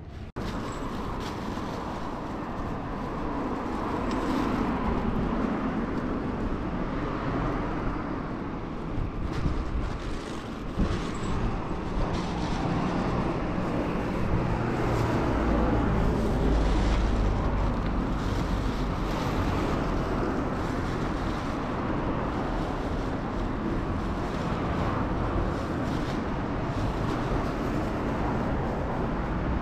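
Road traffic noise: a steady rumble of cars passing on a street, swelling as vehicles go by, with no music or voices.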